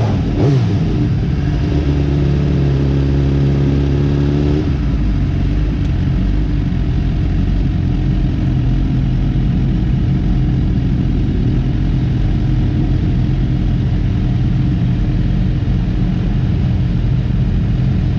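Onboard sound of a 2020 Suzuki GSX-R1000R's inline-four engine on track, with steady wind noise. The engine pitch sweeps down quickly at the start, holds steady, drops to a lower note about four and a half seconds in, and then stays steady.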